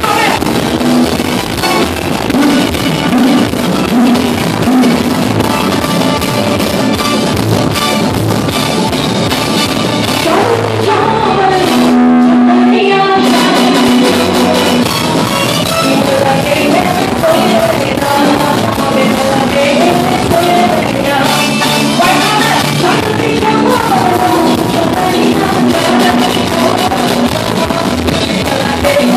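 Loud live chutney band music through a PA, with a singer's voice over a steady beat. Around the middle the high drum and cymbal sound drops away for about two seconds, then the full band returns.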